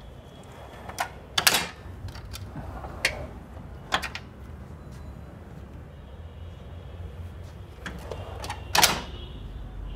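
Steel roller tool cabinet drawers and bagged tools being handled: several sharp clacks and knocks, the loudest about a second and a half in and near the end, over a steady low hum.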